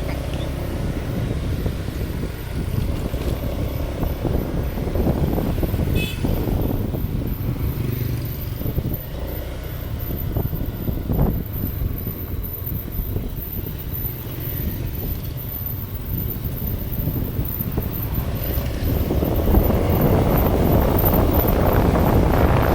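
A vehicle engine running with a steady low rumble, and wind noise on the microphone growing louder in the last few seconds.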